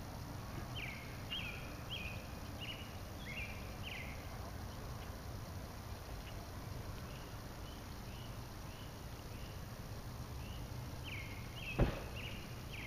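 An animal calling a run of short high notes, about two a second, loudest in the first few seconds, fainter through the middle and stronger again near the end, over a steady low outdoor rumble. A single sharp knock sounds near the end.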